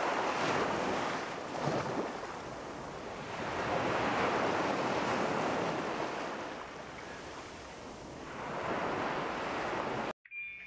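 Small sea waves breaking and washing up a sandy beach. The surf swells and fades about three times, then cuts off abruptly near the end.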